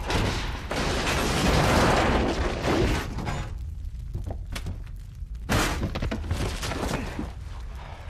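Film explosion aftermath: loud crashing noise of debris and impacts over a deep rumble for about three seconds, then thinner scattered knocks, with a second sharp crash about five and a half seconds in.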